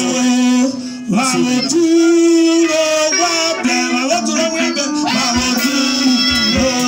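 Gospel singing amplified through microphones and loudspeakers, a voice holding long, steady notes. There is a short break about a second in, and a few low thumps near the end.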